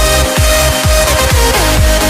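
Electronic dance music with a pounding kick drum about twice a second under a synth melody that slides between notes.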